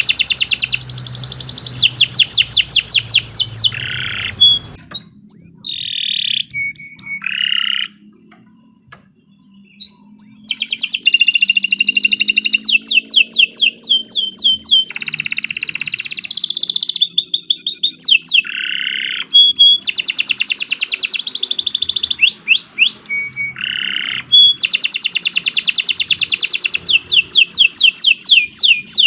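Domestic canary singing a long song of fast trills and rolling chirps, with a short pause about eight seconds in.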